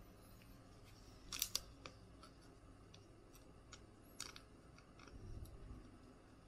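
Faint crinkling and small clicks of a soft plastic penny sleeve handled by gloved hands as a trading card is slid into it, with two sharper clicks about a second and a half in and another near four seconds. A soft low rumble of handling follows about five seconds in.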